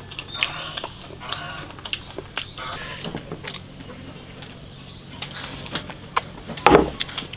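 Eating pork ribs: scattered clicks and knocks of chopsticks and rib bones with chewing, and a louder short falling sound near the end.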